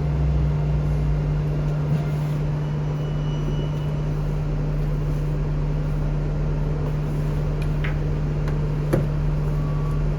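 Steady low mechanical hum, with two brief clicks near the end.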